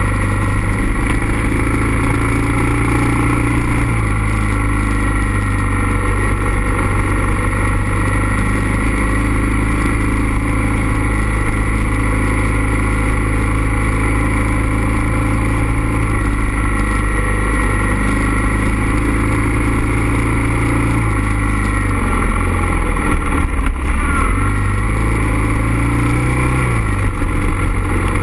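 Suzuki DR650's single-cylinder four-stroke engine running steadily under way on a gravel road. Near the end the engine note drops and then climbs back as the throttle is eased off and opened again.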